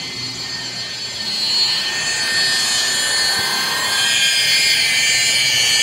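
Electric rotary polisher with a wool pad running on car paint, buffing it with polishing compound: a steady high-pitched motor whine that gets louder about a second and a half in.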